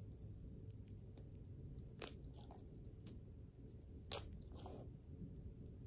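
Dog biting at a chew held in a hand: scattered faint clicks and crunches, with two sharper cracks about two and four seconds in, the second the loudest.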